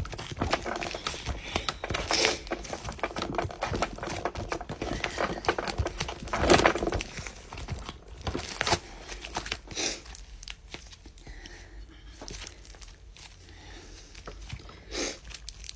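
Butter slime being kneaded and stretched by hand, giving quick runs of soft sticky clicks and crackles, with a few louder squishes. The clicking is dense for the first ten seconds or so and grows sparser after that.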